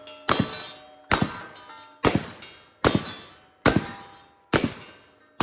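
A run of sharp metallic clangs, about one a second, each ringing out and fading before the next.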